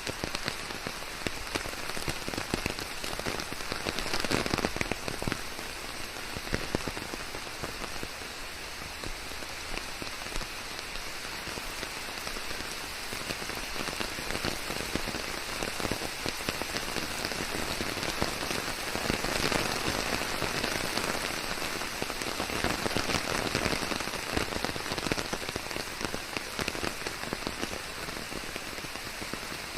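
Steady rain falling on surfaces, a dense patter of countless fine drop impacts that swells and eases a little now and then.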